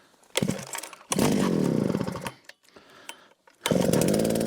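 Jonsered 801 two-stroke chainsaw being pull-started: after a short pull it fires and runs for about a second with its pitch falling away, goes quiet, then starts again about three and a half seconds in and keeps running.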